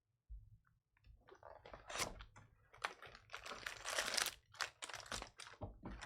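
Irregular crinkling and rustling of trading card pack wrappers and cards being handled, beginning about a second in.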